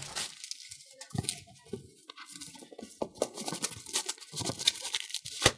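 Packaging being handled and opened: irregular rustling, tearing and crinkling of the box and its wrapping, with scattered small clicks and a sharper click at the start and near the end.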